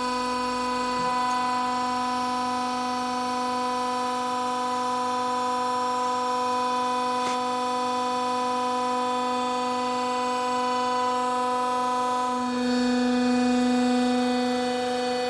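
Hydraulic power unit of a vertical baler running with a steady, even-pitched hum, getting louder about twelve seconds in.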